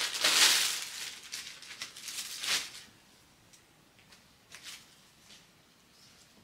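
Clear plastic clothing packaging rustling and crinkling as it is handled and a garment is pulled out, loudest in the first second and dying away about three seconds in, followed by a few faint rustles.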